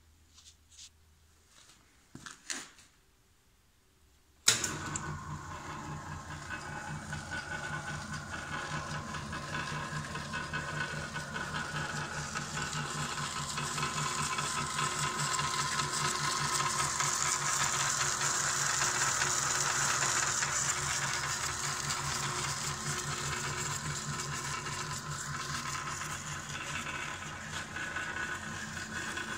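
Walker-Turner radial arm drill press switched on suddenly about four seconds in, then its electric motor and belt-driven spindle running steadily with a hum and a light whine.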